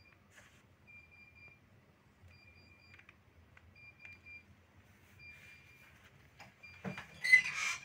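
Faint electronic beeping: a flat high tone pulsing in short beeps about every second and a half. Near the end a knock is followed by a loud, brief noisy burst.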